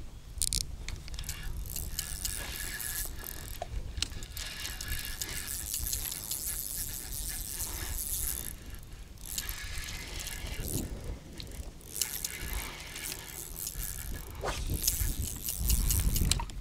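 Spinning reel being cranked to retrieve line, its gears whirring steadily.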